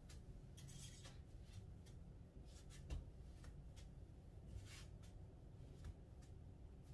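Near silence with a few faint rustles of clothing as someone moves and raises their arms, and one soft bump about three seconds in.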